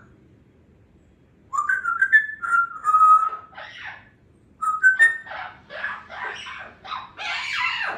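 African grey parrot whistling a short run of notes that step up and down in pitch about a second and a half in, then chattering in speech-like mimicry with a few more whistles through the second half.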